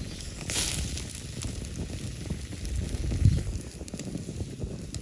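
Wood campfire burning and crackling, with a brief hiss about half a second in and a low thump a little after three seconds.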